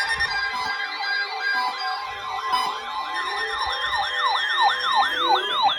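Several weather alert radios sounding their alarms at once for a new severe thunderstorm warning: a warbling siren-style alert sweeping up and down in pitch, speeding up to about three or four sweeps a second, over steady and pulsing alert beeps.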